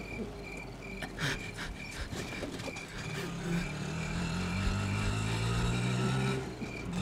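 Auto-rickshaw engine running, heard from inside the cab, its low hum growing stronger about three seconds in. A high pulsed tone repeats a few times a second throughout, and a few light clicks come about a second in.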